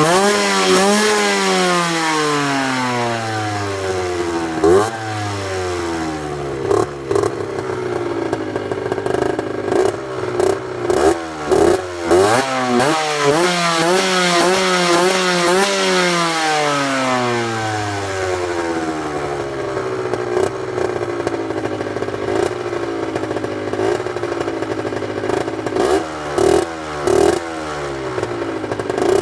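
Derbi Senda 50's two-stroke single with a Yasuni Cross expansion-chamber exhaust, revving up and down: the engine pitch climbs over several seconds, holds, then falls away, several times over, with scattered short knocks.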